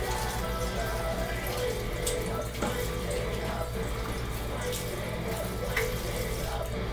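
Water running from a kitchen tap into a sink while hands rinse under it, with a few clicks of things knocking in the sink. Music plays in the background.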